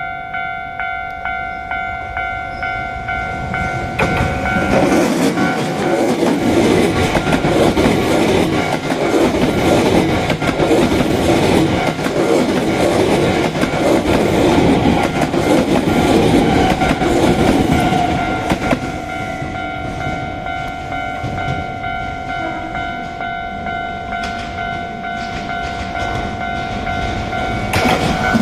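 Japanese level-crossing alarm ringing steadily at about two strokes a second. Some four seconds in, a Hankyu electric train passes with loud running noise for about fourteen seconds. The alarm keeps ringing after the train has gone by.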